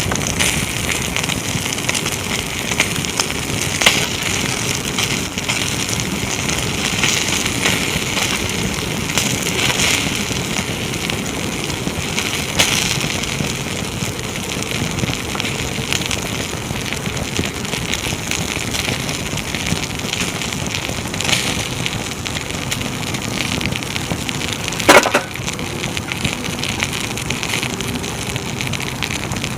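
Wood bonfire crackling and popping over a steady hiss, with one sharp, loud pop about 25 seconds in.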